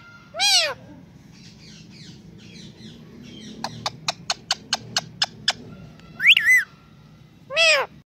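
Indian ringneck parakeet giving three loud squawks that rise and fall in pitch: one about half a second in and two close together near the end. In between comes a quick run of about nine sharp clicks, about five a second.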